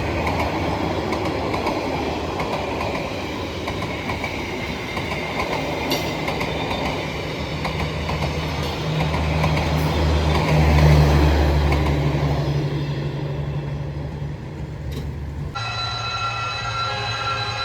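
Train running past: a steady low diesel engine drone over rolling wheel and rail noise, loudest about eleven seconds in. Near the end the sound changes suddenly to a steady high ringing tone.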